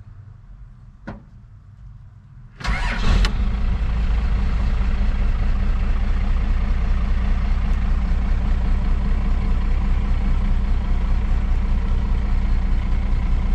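The 1989 Dodge D250's 12-valve Cummins 5.9-litre inline-six turbo diesel starting from cold, heard from inside the cab. A single click about a second in, then it cranks only briefly and fires about two and a half seconds in, catching fast and settling into a steady idle.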